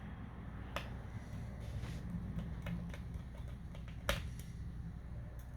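A few light, sharp clicks and taps from handling a laptop, the loudest about four seconds in, over a low steady hum.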